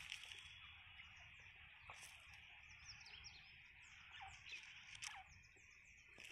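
Faint outdoor ambience: a rapid run of small, high bird chirps through the middle, over a steady faint high hiss.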